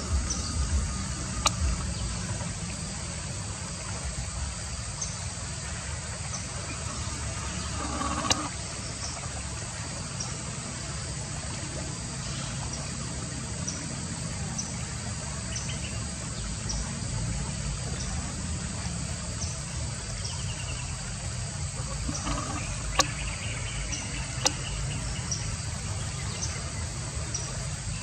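A high insect chirp repeating about once a second over a steady low rumble, with a few sharp clicks.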